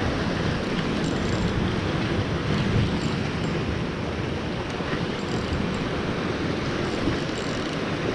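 Steady wind buffeting the microphone over the wash of the sea.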